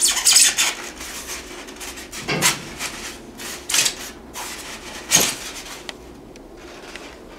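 Polystyrene foam packing blocks rubbing and scraping against each other and the printer's metal case as the printer is slid out of its foam, in several louder scrapes before it quiets near the end.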